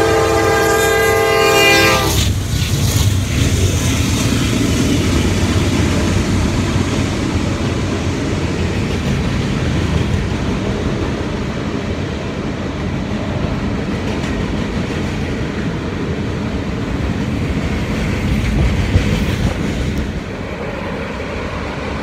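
Norfolk Southern diesel freight locomotive blowing its horn, a chord held for about two seconds, then passing beneath with its engine running. A long string of steel gondola cars follows, rumbling and clacking over the rail joints.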